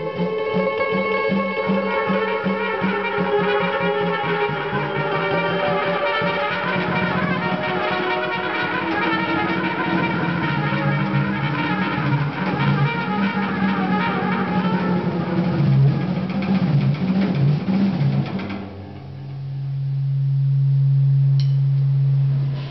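Free-improvised jazz trio of trumpet, electric guitar and drums playing densely, with the trumpet prominent. Near the end the playing falls away to a single low electric-guitar note that swells up and is held.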